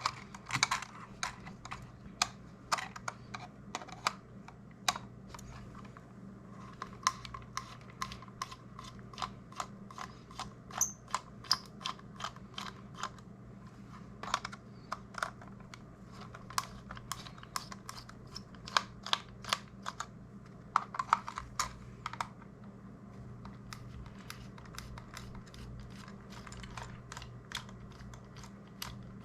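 Small screwdriver clicking and tapping on the screws of a DJI Mini 2 drone's plastic top cover as they are taken out, in irregular light clicks, several a second at times. A steady low hum runs underneath.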